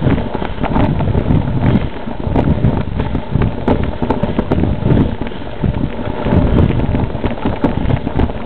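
Wind noise on the microphone of a camera riding on a mountain bike over a rough, stony dirt trail, with frequent short rattles and knocks from the bike and tyres on the stones.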